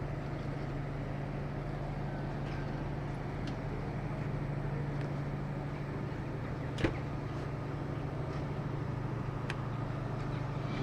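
A steady low mechanical hum over outdoor background noise, with a single sharp click about seven seconds in.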